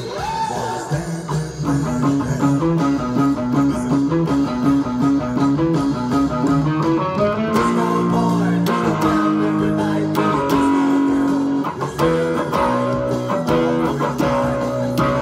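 Stratocaster-style electric guitar with single-coil pickups playing a melodic line: a bent note near the start, then a quick run of alternating notes, then longer held notes.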